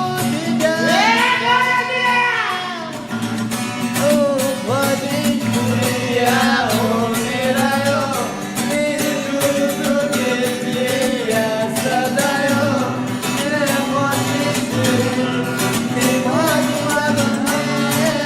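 Song: a voice singing a gliding, ornamented melody over a steady strummed guitar rhythm.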